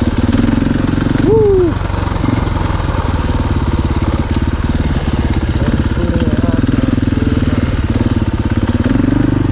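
Dirt bike engine running steadily at low revs, its firing pulses even throughout. About a second in, a short rising-then-falling vocal whoop rises above the engine.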